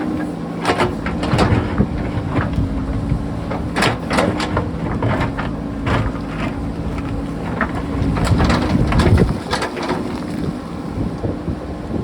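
JCB backhoe loader's diesel engine running steadily under load, with repeated sharp knocks and clatter of rock against the bucket. The engine drops lower about nine seconds in.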